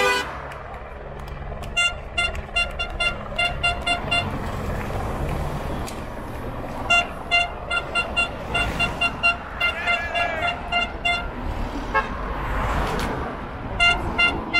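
A horn tooted in rapid runs of short blasts, four or five a second, over the steady noise of cars driving past, one of them passing close with a rising and falling whoosh near the end.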